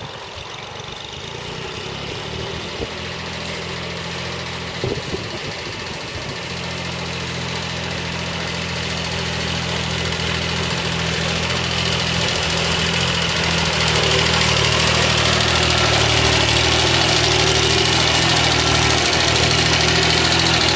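Iseki TX2160 compact tractor's engine running steadily under load as it tows a trailer through mud, growing louder as it approaches and draws alongside. A couple of brief knocks about five seconds in.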